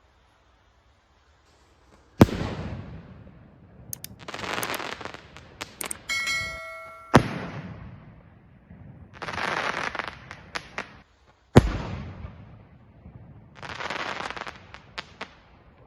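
Fireworks going off: three sharp bangs, each followed by a spell of crackling and popping. A brief, high, steady tone sounds just before the second bang.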